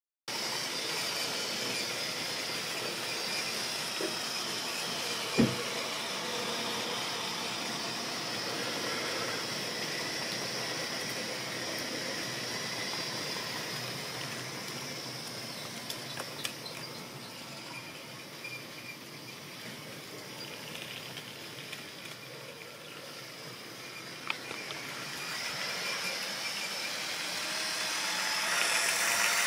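Model railway train running on the track: a steady whirring hiss from the small electric motor and wheels, with a few sharp clicks, the loudest about five seconds in. It grows louder near the end.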